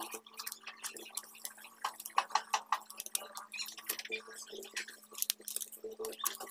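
Bar grip tape being stretched and wound around an aero bar by hand: irregular soft crackles and ticks of the tape rubbing and its adhesive backing, over a steady low hum.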